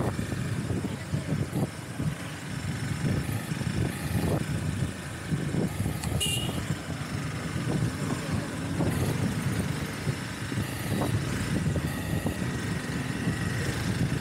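A motorbike running at low speed in city traffic, its engine and road noise making a steady, uneven rumble, with other motorbikes and cars around it. A short, high-pitched beep sounds about six seconds in.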